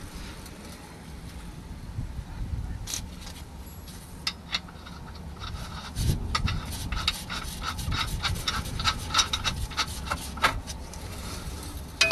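Light metallic clicks and knocks, a few a second and thickest in the second half, over low rustling: a new gearbox mounting on a 2003 Renault Clio being worked into line against its bracket.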